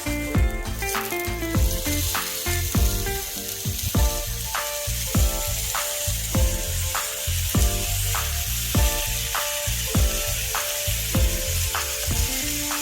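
Food sizzling steadily in a hot electric waffle maker, a continuous frying hiss, over background music with a steady beat.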